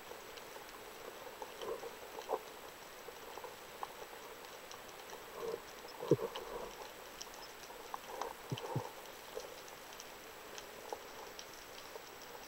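Underwater ambience on a rocky reef: a faint, steady hiss with scattered sharp clicks and crackles, and a few low thumps around the middle.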